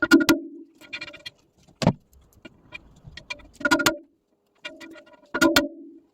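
Sharp metal knocks, about five or six, each with a short ring, from work on an aluminium alloy wheel rim being straightened, with light clatter between the strikes.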